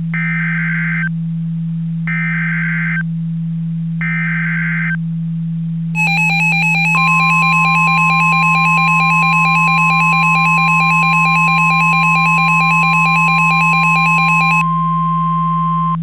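Emergency Alert System header data: three one-second bursts of chirping digital tones, each followed by about a second of pause. About six seconds in, a harsh pulsing alert tone starts, and a second later a steady high tone, the NOAA Weather Radio 1050 Hz warning alarm, joins it. The alarm runs on alone near the end, signalling a Civil Danger Warning, with a low steady hum underneath throughout.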